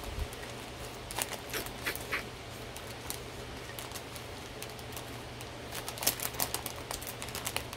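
Small plastic bags of diamond-painting drills being flipped through by hand: scattered light clicks and crinkles, coming thicker in the last couple of seconds.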